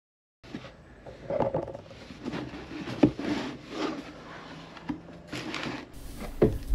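A new pair of Hoka Speedgoat 5 shoes being unboxed by hand: a cardboard shoebox handled and opened, with scattered knocks, scrapes and rubbing, and a sharper knock near the end.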